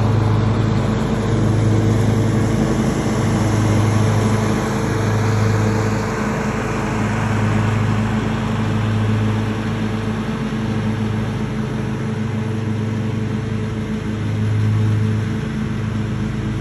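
John Deere X320 riding lawn mower's engine running steadily at mowing speed with the cutting deck engaged, a steady low hum with a faint pulse, easing slightly as the mower drives away.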